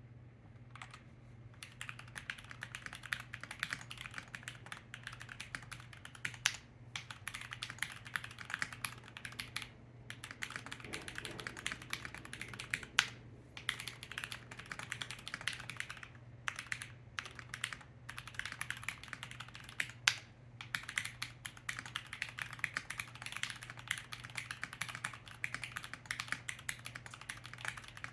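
Continuous typing on a custom mechanical keyboard with Durock Lavender linear switches (factory-lubed) and lubed stabilizers, in an FR4-plate, tape-modded KBD67 Lite R3: rapid clacks in bursts with short pauses between and a few louder single strokes, such as spacebar hits. A faint steady hum lies underneath.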